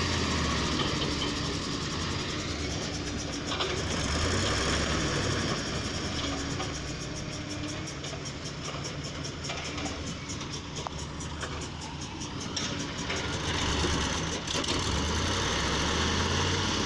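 Heavy vehicle's diesel engine running steadily, its level rising and falling slightly.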